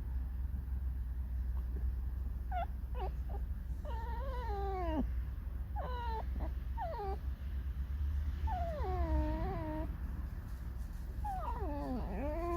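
Pet fox whining and squeaking: short high squeaks alternate with longer wavering whines that fall in pitch, about half a dozen calls in all. A steady low rumble runs underneath. This is the mournful whining of a fox in a sulky, discontented mood.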